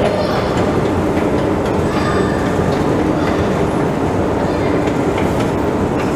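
Steady, loud rumbling roar that fills the echoing escalator hall of a deep underground railway station.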